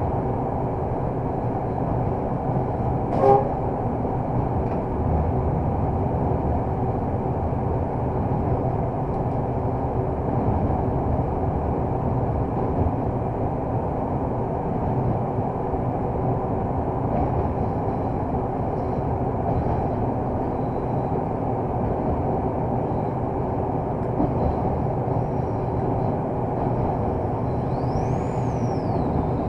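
Inside the cab of a 060-DA (LDE2100) diesel-electric locomotive under way: the steady run of its Sulzer diesel engine mixed with wheel and rail noise. A short horn toot about three seconds in.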